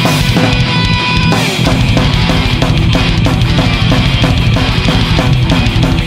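A rock band playing heavy rock live on electric guitar, bass guitar and drum kit, with a steady, driving drum beat. The bass and kick drum come in harder about a second and a half in.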